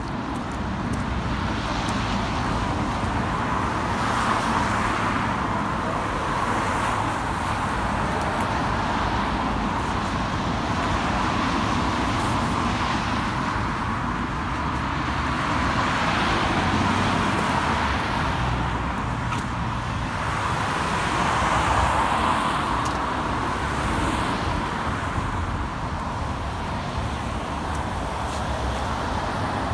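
Steady road traffic, with cars swelling past close by every few seconds.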